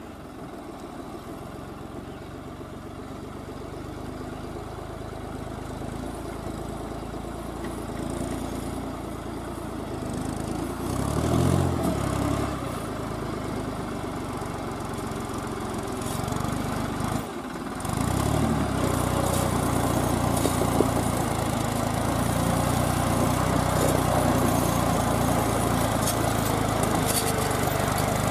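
Diesel farm tractor engine working hard as it hauls a heavily loaded sugarcane trailer through mud, getting steadily louder as it approaches. The revs surge a little before halfway, and the sound drops out for a moment about two-thirds of the way through before coming back louder.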